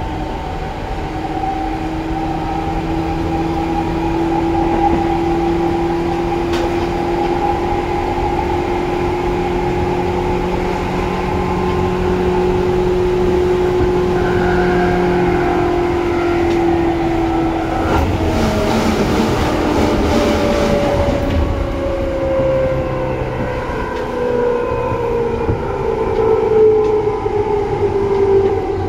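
Seibu 2000 series electric train's traction motors whining over the rumble of the running gear. The motor tone holds a fairly even pitch, then from about two-thirds of the way in slides steadily downward as the train slows. A brief noisy rush comes just before that.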